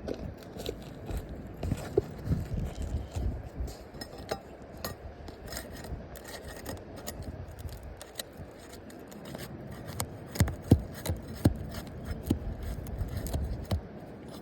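Asphalt roof shingle being pried up by hand, scraping and crackling in a string of irregular clicks as its tab is pulled loose from the sealant strip. The seal is holding fast, so the shingle comes up only with a struggle.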